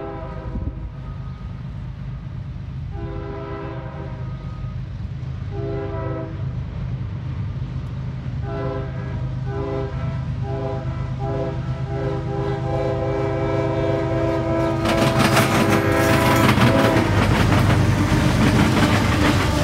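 Approaching CSX freight locomotive's air horn sounding a chord in a series of blasts: two long, a short, several short ones, then a long blast, growing louder. About fifteen seconds in the horn stops as the lead locomotives pass close. Their diesel engines run loud, and the wheels clatter and bang rapidly across the diamond crossing.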